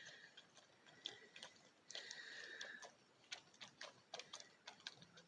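Near silence with faint scattered clicks and, about two seconds in, a thin high-pitched squeal lasting about a second: raccoons fussing at each other high in a tree.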